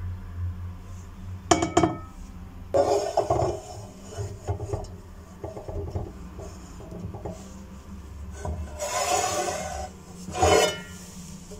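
Hard objects being handled: several knocks and clatters, with two longer scraping or rubbing noises near the end, over a steady low hum.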